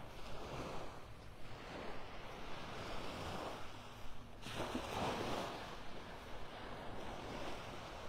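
Small Gulf waves lapping at the shoreline, with wind on the microphone. The noise swells and falls irregularly and is loudest about halfway through.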